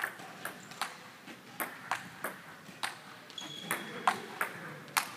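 Table tennis rally: the ping-pong ball clicks sharply off the paddles and the table in a quick back-and-forth, about a dozen hits a third to half a second apart. A brief high squeak comes a little past halfway.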